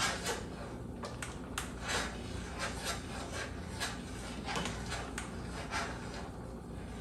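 A metal spoon stirring and scraping in a stainless steel brew pot as dried malt extract is poured in, in irregular strokes, over the steady low hum of the propane burner.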